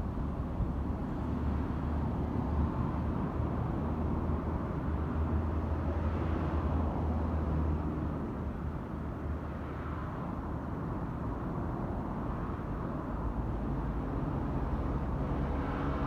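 Steady low vehicle rumble with no sharp onsets, swelling slightly a few times.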